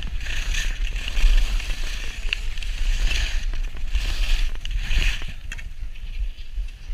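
Skis scraping and hissing over packed snow in a run of turns, over a steady low wind rumble on a GoPro HERO4's microphone. The scraping dies away about five seconds in as the skier slows.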